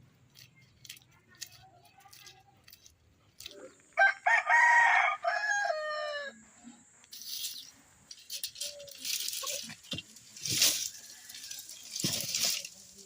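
A rooster crows once, a loud call of about two seconds that drops in pitch at the end. It is followed by several short bursts of noise.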